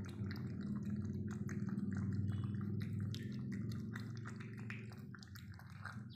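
A puppy eating wet rice from a plastic tub: many quick, irregular wet smacking and chewing clicks, over a steady low hum.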